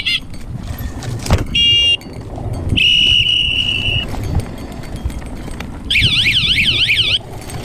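Mountain bike rolling over a rough trail with a constant low rumble. Over it come loud high tones: a short beeping burst, then a steady tone held about a second, then a fast warbling tone that rises and falls several times a second near the end.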